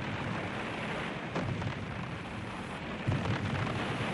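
Steady rumble of explosions and shellfire, with a sharper blast about three seconds in.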